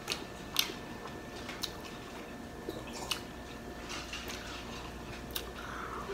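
A person chewing a mouthful of a soft chicken wrap with the mouth closed: quiet wet smacks and clicks about once a second.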